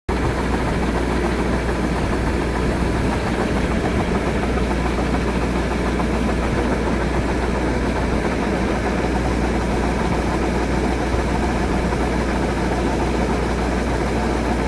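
Yanmar AW70GV combine harvester's diesel engine running steadily, with a constant low drone.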